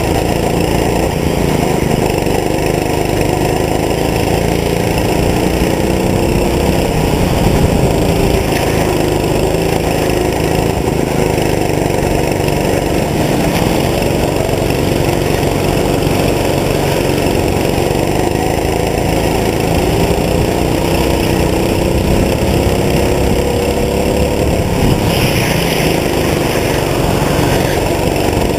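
Go-kart's small engine running hard, heard on board, its pitch rising and falling again and again as the throttle is opened and eased.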